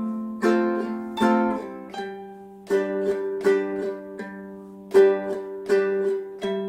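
Ukulele strumming chords with no voice, each stroke ringing out and fading before the next.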